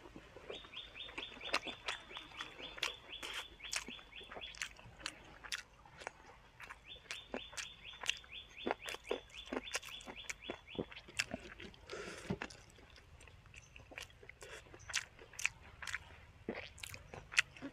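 Close-miked chewing and crunching of food, with irregular crisp crunches from crunchy long-bean salad and raw vegetables. Behind it, a rapid, even, high-pitched ticking trill runs twice, each time for about four seconds.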